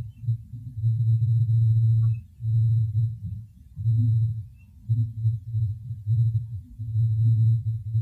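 A series of low, steady-pitched hooting tones, each held from about half a second to over a second with short gaps between them. The recordist takes them for adult Bigfoot calls.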